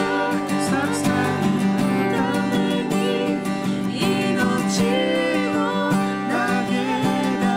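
Acoustic guitar strummed and picked in a slow worship song, with a voice singing a melody over it.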